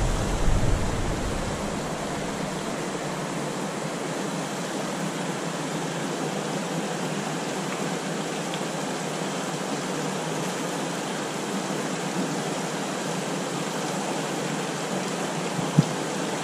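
Steady rush of a shallow, rocky river's current flowing over stones, with a single short click near the end.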